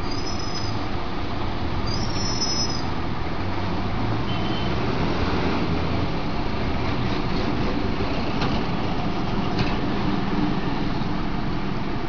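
Steady rumbling background noise, with a few faint high squeaks in the first three seconds.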